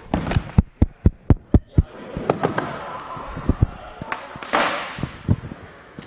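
Hands clapping: about seven sharp claps in quick succession, roughly four a second, over the first two seconds, followed by a few scattered knocks.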